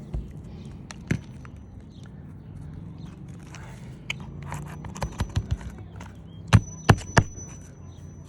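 Hammer driving a roofing nail through an asphalt shingle: a few light setting taps, then three hard blows near the end, followed by a thin high ring.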